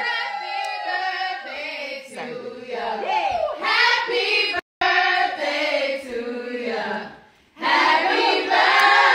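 A group of women's voices singing together in a loose, overlapping chorus. The sound cuts out sharply for a moment about halfway through.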